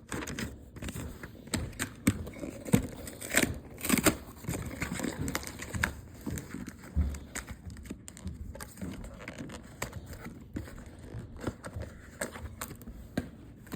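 Toy box packaging being handled and opened to take the toy phone out: irregular crinkling, rustling and small clicks.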